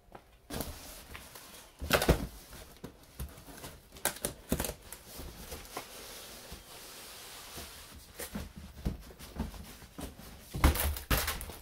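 Cardboard boxes scraping, rustling and knocking together as a tall inner box is pulled up out of a shipping box, with sharp bumps about two seconds in and again near the end.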